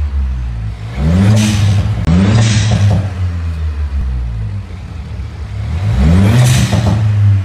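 Stage 2 remapped Volkswagen Polo GT TSI turbocharged petrol engine with a BMC cone air filter, idling and revved three times while standing: each blip rises in pitch, brings a hiss of air near the top and falls back to idle. The blips come about a second in, about two seconds in, and near six seconds.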